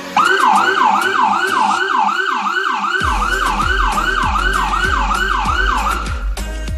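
Vehicle-mounted electronic police siren sounding a fast yelp, its pitch sweeping up and down about three times a second. It starts abruptly and cuts off about six seconds in. Background music with a heavy bass beat comes in about halfway through.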